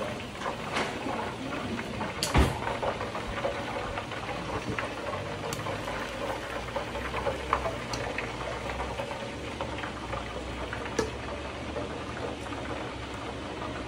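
Hot oil sizzling and crackling steadily in a Hamilton Beach electric deep fryer around freshly fried chicken wings. Several sharp metallic clicks from metal tongs on the wire fry basket stand out over it, the loudest about two seconds in.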